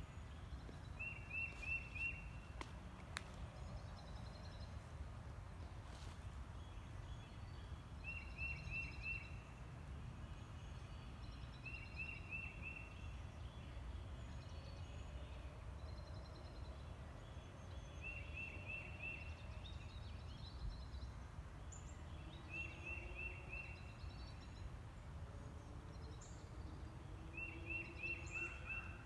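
A bird repeating a short phrase of four quick, high notes, about six times, with fainter chirps from other birds, over a steady low rumble of ambient outdoor noise.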